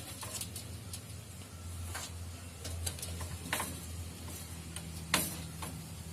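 A handful of light, irregular clicks and taps from computer cables and parts being handled while a data cable is plugged into a motherboard, over a steady low hum.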